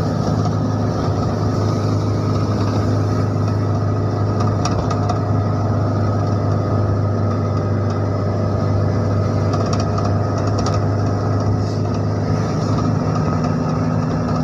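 Engine of a moving vehicle heard from on board, running at a steady cruising speed: an unchanging low drone with tyre and road noise.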